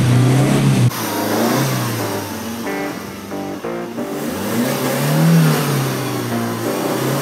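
Old Mercedes saloon's engine revving up and falling back twice as its rear wheel, on a 3D-printed ABS rim, spins in the mud in a burnout.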